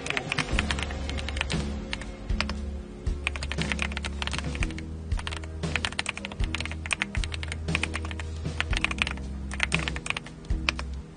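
Rapid typing on an AULA F75 mechanical keyboard, a dense, irregular run of key clicks, over background music with a steady bass line.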